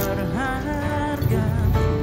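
Background music: a song with a sung melody over instruments.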